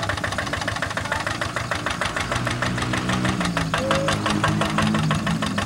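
Single-cylinder diesel engine of a two-wheel hand tractor running with a fast, even knocking beat.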